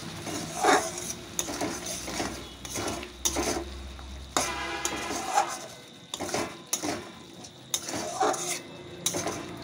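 A spoon stirring a thick chicken liver and gizzard curry in a kadai, with repeated scrapes and clinks against the pan about once a second.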